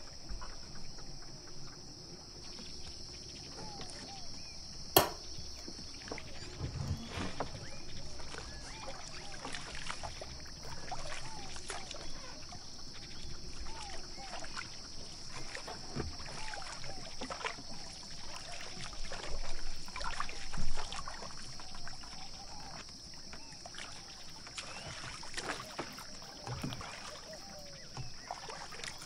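A hand mixing flour into a wet yogurt, milk, oil and egg mixture in a glass bowl, bringing it together into dough: soft, irregular squishing and scraping of fingers through the wet flour and against the glass. A sharp click about five seconds in, and a steady high hiss underneath.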